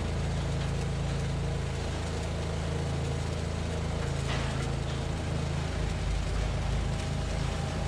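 Arc welding on a steel I-beam overhead, a steady crackling hiss, over the steady drone of an engine running.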